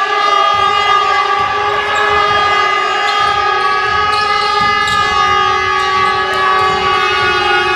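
Loud steady drone of several held horn-like tones together, unbroken throughout, with faint low thuds underneath.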